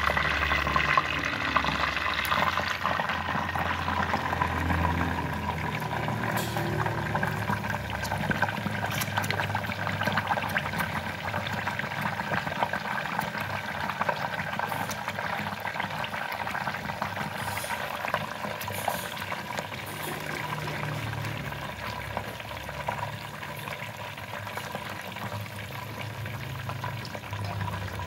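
Whole giant gourami frying in hot oil in a pot: a steady crackling sizzle that slowly grows quieter, with a low hum underneath.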